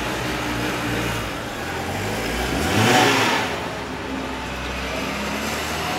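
A car driving past close by, growing louder to a peak about halfway through and then fading, over a steady low engine hum.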